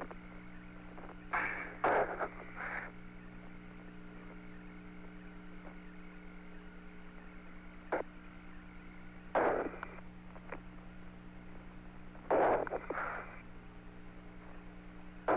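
Steady hum and hiss of the Apollo 17 air-to-ground radio link while nobody talks, broken by a few short bursts of static: two about one and a half to three seconds in, a click about eight seconds in, and more near nine and a half and twelve and a half seconds.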